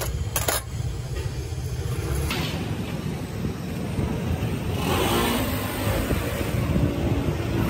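Low, steady rumble of street traffic, with a vehicle swelling past about five seconds in.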